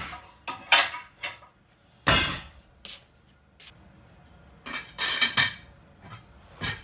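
Kitchen handling noises: a series of short knocks and clattering scrapes, with a heavier thump about two seconds in.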